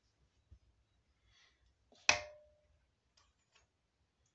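A single sharp clink about two seconds in, with a short ringing tone after it, and a few faint ticks around it: small hard parts being handled.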